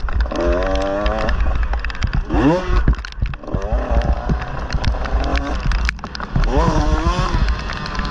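Motorcycle engine revving up and down over a heavy low rumble, with a sharp climb in revs about two and a half seconds in and another swell near the end.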